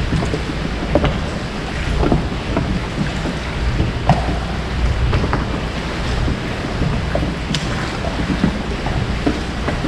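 Wind buffeting the microphone over water lapping against a small boat, with scattered light knocks and clicks.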